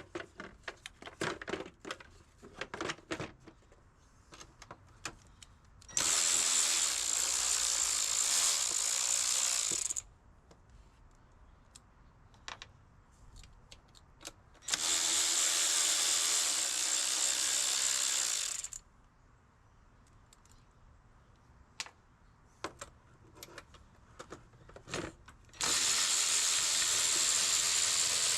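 A small power tool's motor runs in three steady bursts of about four seconds each, loosening fasteners on the throttle body of a 2017 Toyota Yaris. Small clicks and rattles of tools and hardware come in between the bursts.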